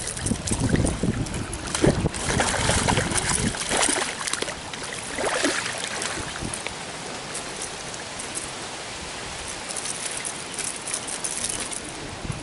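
Hooked trout thrashing and splashing at the water's surface, loudest over the first four seconds, then a landing net dipped in with a shorter surge of splashing, settling to gentle sloshing and trickling water.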